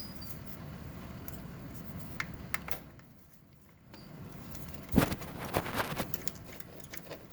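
Hand tools and wire working at the push-button shifter cable under a car: low rustling handling noise, then a cluster of sharp metallic clicks and knocks about five seconds in, the first the loudest.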